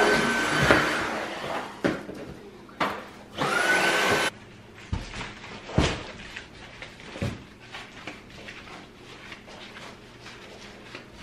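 Stick vacuum cleaner's motor running with a steady whine, cutting off about a second in. It is switched on again for about a second, its whine rising as it spins up, then stops. Scattered knocks and clatter follow.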